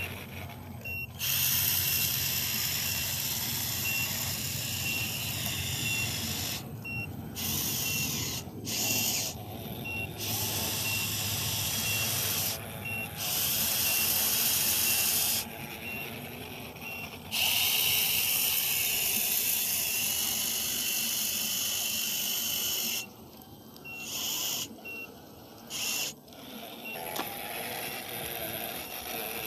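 Radio-controlled model bulldozer working: a high whining hiss from its drive switches on and off in spells of a few seconds as it moves. A short high reversing beep repeats about once a second through the first half and again briefly near the end.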